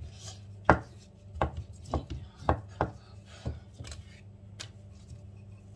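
Wooden rolling pin knocking and rolling against a silicone mat on the counter as bread dough is rolled out: a quick string of sharp knocks over about three seconds, the first the loudest, and one more knock a little later.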